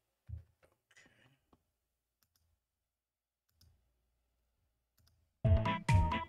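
A few faint clicks, then near silence, then music with a steady beat and melody starts abruptly about five seconds in.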